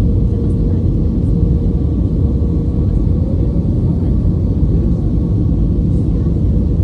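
Steady, heavy low rumble inside an airliner cabin during landing, with a faint steady hum above it.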